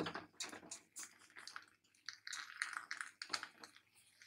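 Uncooked stuffed paratha laid onto a hot tawa (flat griddle): faint, irregular small crackles and taps as the dough goes down and settles on the hot surface.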